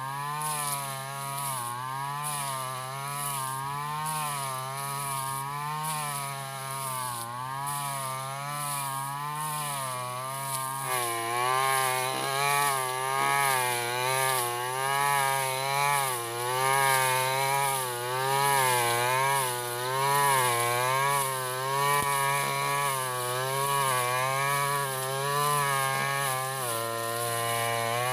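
Stihl FR 3001 brush cutter's two-stroke engine running at high speed while cutting tall grass, its pitch rising and falling every second or so as the blade loads up and clears. About eleven seconds in it gets louder and higher, and near the end it drops to a lower, steadier pitch.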